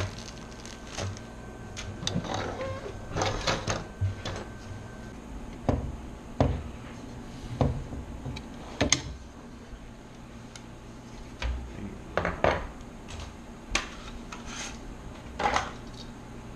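Hardware being handled while a liquid cooler's radiator is fitted into a PC case: irregular clicks, taps and short scrapes of metal and plastic parts, with a low steady hum underneath.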